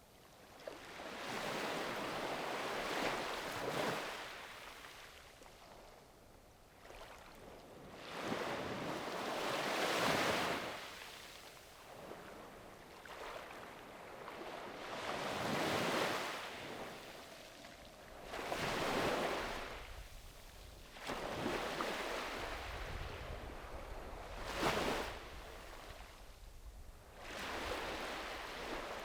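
Small sea waves breaking and washing up a beach, each surge swelling and fading every few seconds, about seven in all.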